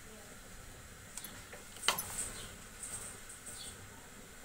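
A metal spoon lifting and stirring thick gram-flour batter in a ceramic bowl, mostly faint, with one light click about two seconds in.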